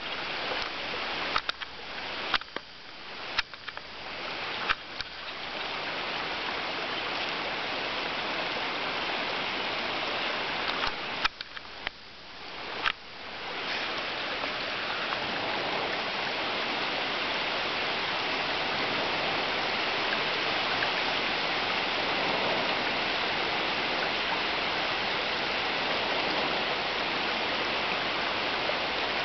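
Steady rushing noise like flowing water or wind. In the first half, about six sharp clicks or knocks cut in.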